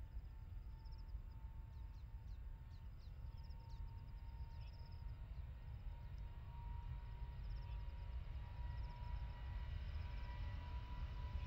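Distant Boeing 777-200's GE90 engines spooling up for the takeoff roll: a faint steady whine that grows louder over the second half, over a low rumble. High chirping of birds runs through it.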